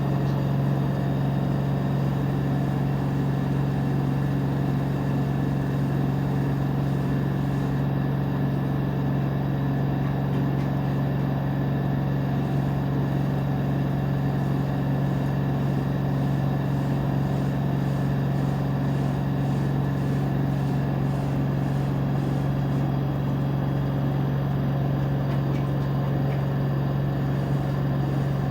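LG 13 kg front-loading washer-dryer in its spin cycle, its drum spinning at full speed with a loud, steady hum that does not change.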